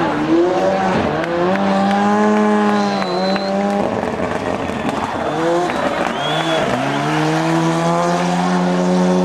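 Ford Sierra Cosworth Group A rally car's turbocharged 2.0-litre four-cylinder engine revving hard while the car slides sideways. The pitch climbs and holds, drops off about three seconds in, then climbs again from about six seconds and holds near the end, with brief tyre squeal.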